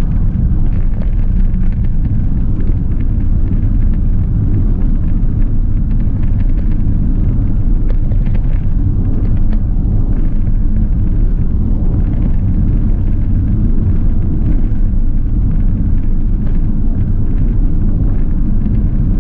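Steady low rumble of engine and road noise inside the cab of a 2010 Fiat Ducato caged tipper van driving at speed.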